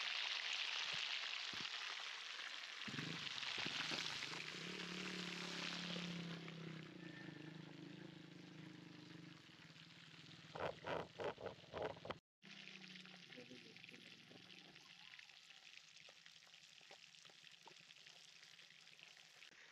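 Fish frying in hot oil in a pan: a steady sizzle that fades after the first several seconds.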